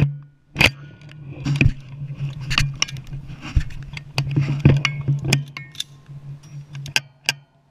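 Short-barreled AR-15 rifle firing a string of single shots, roughly one a second with a few closer together, picked up by a camera mounted on the rifle itself, over a steady low hum.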